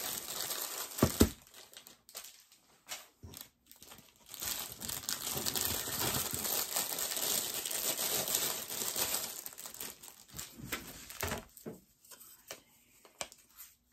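Packaging being crinkled and torn by hand while a set of coasters is unwrapped: a steady rustling crackle through the middle that thins into scattered crinkles near the end, after a brief low bump about a second in.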